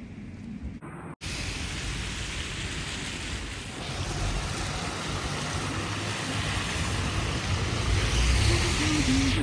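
Street traffic: a steady hiss with a low engine rumble that grows louder toward the end, after a brief dropout about a second in.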